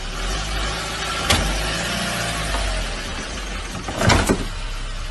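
Toyota pickup truck's engine running low and steady as it creeps forward against a stone wall, with a sharp knock about a second in and two louder cracks, about a quarter-second apart, near four seconds in as the front presses on the stones.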